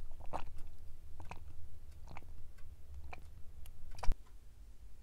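Close-miked swallowing of toffee nut latte drunk from a takeaway cup's lid: about five gulps, roughly one a second, with a sharp click about four seconds in.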